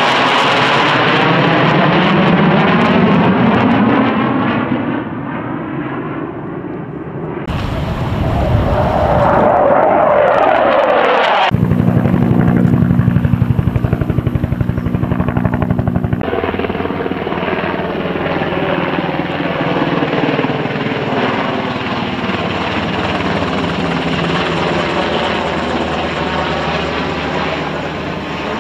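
Military aircraft passing overhead one after another: a fighter jet flying past, its sound sweeping down in pitch over the first several seconds; then a Bell UH-1 Huey helicopter with a steady, pulsing rotor beat; then a Sikorsky Seahawk helicopter's rotor and turbine sound passing by.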